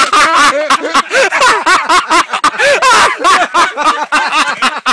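People laughing hard and loud, in quick repeated bursts of laughter with no pause.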